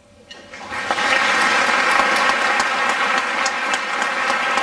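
Audience applause breaks out a moment in and swells to full within about a second, then holds steady.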